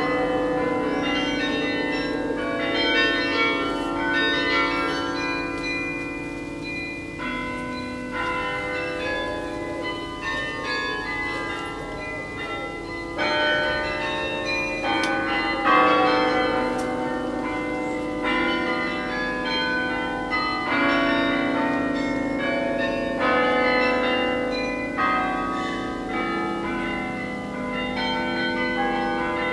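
Carillon playing a hymn arrangement: many bronze bells struck from the baton keyboard in melody and chords, each note ringing on and overlapping the next.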